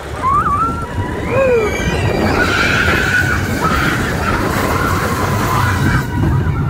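Mine-train roller coaster running on its tubular steel track with a low rumble and clatter. A high wavering squeal rises and falls in the first two seconds, then a rougher, steadier wheel screech runs until near the end.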